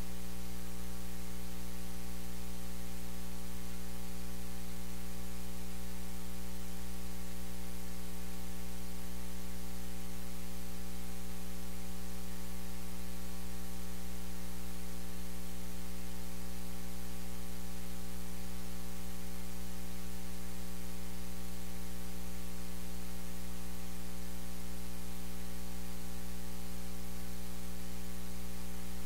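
Steady electrical mains hum, a low drone with a stack of overtones, over constant hiss. It does not change at all.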